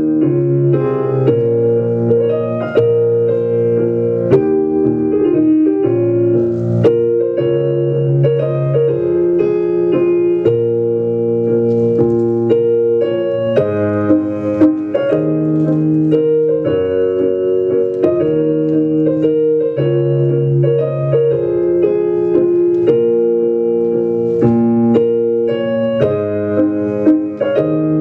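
Waltz music played on a keyboard, with held chords that change every second or two.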